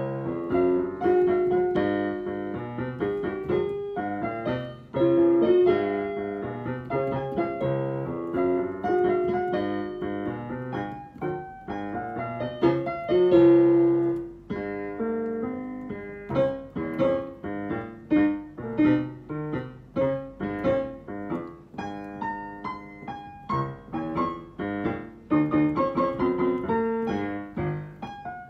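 Piano duet on a digital piano, a child and an adult playing four hands on one keyboard: a lively tune of short, detached notes.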